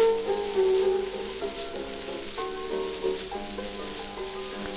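Playback of an early acoustic-era Columbia phonograph recording: the instrumental accompaniment plays a tune of changing held notes ahead of the singer's entry, under steady surface hiss and crackle.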